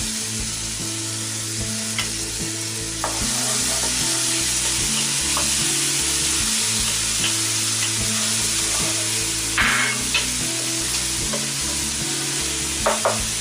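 Onion frying in hot vegetable oil in a pot, a steady sizzle that grows louder about 3 s in, with a few clinks of a spoon against the pot as it is stirred. Faint background music underneath.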